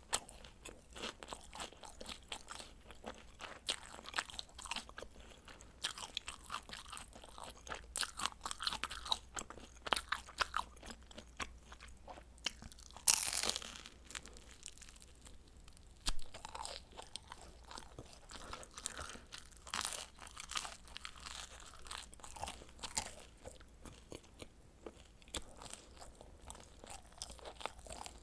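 Frozen pizza being bitten and chewed close to the microphone: a steady run of irregular crisp crunches, with one louder, longer crunch about halfway through.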